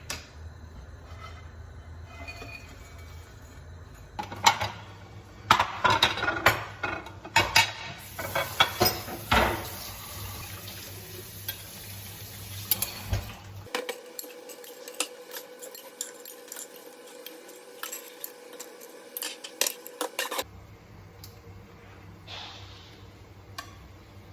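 Dishes and cutlery clinking: a run of sharp clinks and knocks of metal and glass kitchenware being handled, loudest and busiest in the first half, with a high hiss in the middle.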